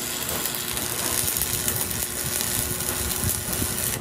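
Shielded metal arc (stick) welding on a steel truck axle tube: the arc gives a steady, dense crackle.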